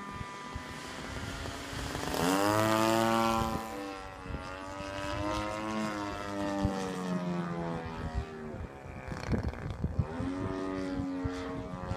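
55cc single-cylinder gas engine of a Big Hots RC plane flying overhead, its propeller note rising sharply about two seconds in, loudest for a second or so as it passes, then falling away, with another rise near the end.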